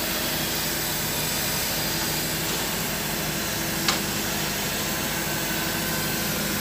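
Steady hissing noise with a low machine hum, and a single sharp metallic click about four seconds in.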